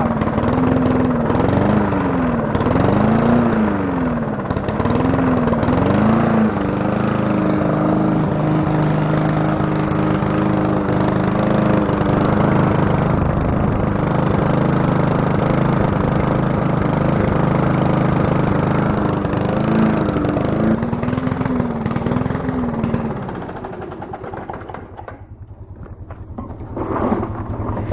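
Small walk-behind lawn mower engine running loud through an exhaust pipe that has a hole drilled in it. Its speed rises and falls over and over for the first few seconds, then holds steady, surges a few more times, and drops off sharply about 24 seconds in before picking up again near the end.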